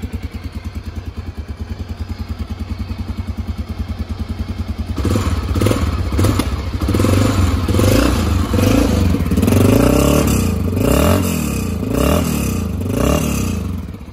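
Honda Dominator's single-cylinder four-stroke engine idling with a rapid, even pulse through an exhaust fitted with a removable dB killer. About five seconds in, the throttle is blipped over and over, the revs rising and falling repeatedly until shortly before the end.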